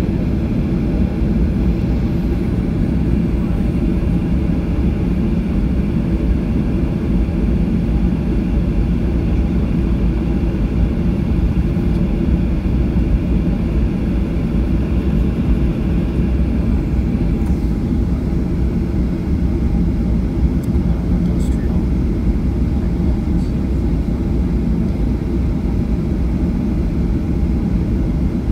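Cabin noise inside a Boeing 737 jet airliner rolling along the runway: the steady sound of the jet engines over a deep rumble from the wheels and airframe.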